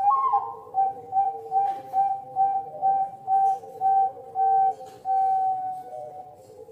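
A bird whistling a series of about a dozen evenly spaced, same-pitched notes, then one longer held note near the end, with a lower wavering whistle beneath.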